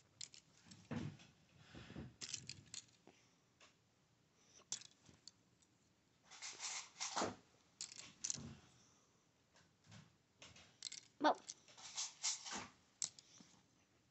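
Plastic Lego minifigures and pieces being picked up and handled: scattered light clicks and rattles among short rustling handling noises.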